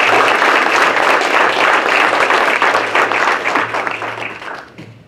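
Audience applauding, many hands clapping together; the applause fades and dies away about four to five seconds in.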